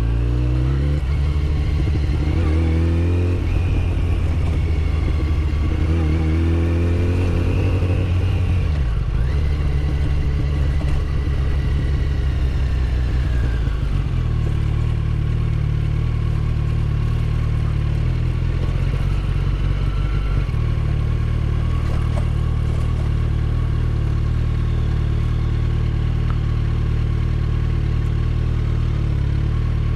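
Yamaha FZ1's inline-four engine running at low road speed. Its revs rise and fall a few times in the first several seconds, then it settles into a steadier note with small pitch changes.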